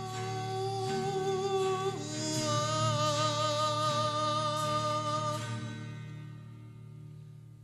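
Male singer holding long, slightly wavering sung notes over acoustic backing, the notes fading away near the end.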